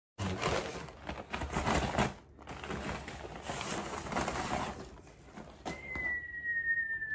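Brown kraft packing paper crinkling and rustling in bursts as it is handled and pulled from the box. Near the end a single steady whistle-like tone starts and slowly sinks a little in pitch.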